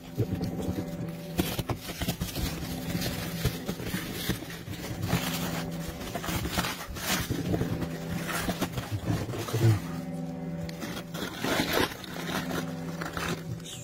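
Plastic wrapping and cardboard rustling, crinkling and scraping as a taped package is cut and unwrapped by hand, in irregular bursts, over a low steady hum.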